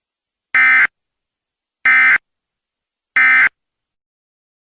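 Three short bursts of Emergency Alert System SAME digital data tones, about a second and a quarter apart: the end-of-message signal that closes an EAS alert.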